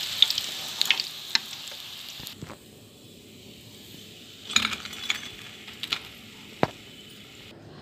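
Hot oil sizzling as fried, crumb-coated chicken pieces are lifted out with a metal slotted spoon, with a few clinks of the spoon against the wok. The sizzle stops abruptly about two and a half seconds in. A few sharp clinks follow as the pieces are set down on a plate with the spoon.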